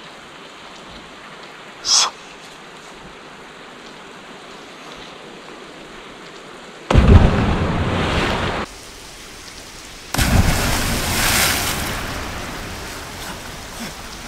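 A person plunging into cold flooded-quarry water: two loud rushes of splashing water, the second trailing off over a few seconds. A short high-pitched sound comes about two seconds in.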